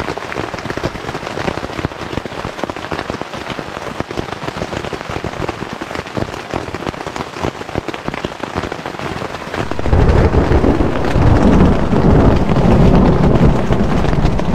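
Freezing rain hitting a tent fly in dense rapid ticks. About ten seconds in, a loud low rumble of thunder sets in and rolls on over the rain.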